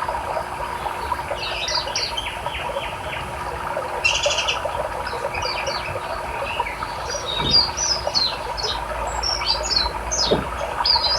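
Small songbirds chirping and twittering in quick, high calls, with a short buzzy trill about four seconds in, over the steady rush of a river.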